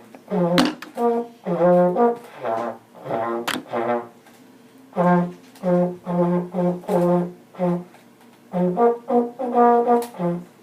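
Trombone played hands-free, a run of short detached notes moving between two or three low pitches, with brief pauses about four seconds in and again about eight seconds in. Two short sharp clicks are heard along with it.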